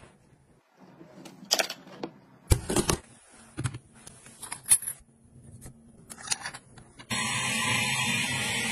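A few sharp clicks and knocks of gadgets being handled. About seven seconds in, a handheld electric noodle maker's motor switches on and runs steadily as it pushes noodles out.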